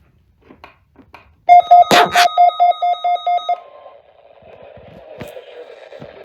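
WR120 weather alert radio's alarm going off: about ten rapid, loud beeps over two seconds, with two sharp clicks among them. It signals that a severe thunderstorm warning has been received. Then the radio's audio comes through as rising static and hiss.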